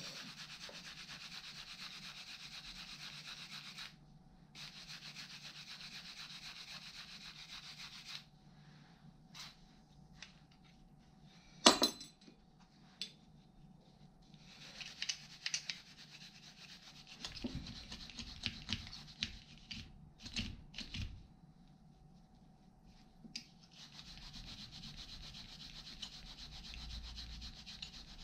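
Small rusty metal tool parts being scrubbed by hand, a steady rubbing in stretches of a few seconds with pauses between. About twelve seconds in comes a single sharp clack, the loudest sound, and in the middle scattered clicks and knocks of parts being handled.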